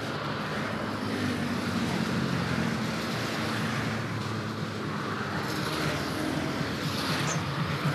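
Road traffic on a wet road: cars and motorbikes going by close, swelling and fading as each one passes.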